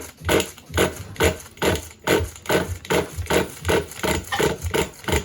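The 3.0-litre engine of a four-wheel-drive vehicle being cranked by its starter, chugging in an even rhythm of about two to three strokes a second without firing. It will not start: the engine has sat unused for months and is cold.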